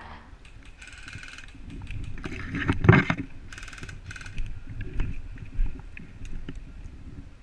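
Footsteps on the leaf-littered forest floor and brush scraping against the camera and gear of a moving airsoft player, with a heavy knock about three seconds in and two brief bursts of rapid ticking.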